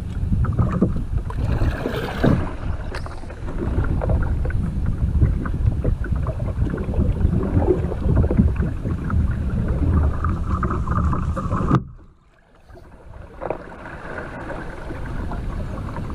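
Water splashing and rushing against a plastic sit-on-top kayak's hull and paddle as it is paddled upstream against a strong spring current, with a low rumble throughout. The sound cuts out for about a second about three quarters of the way through, then returns a little quieter.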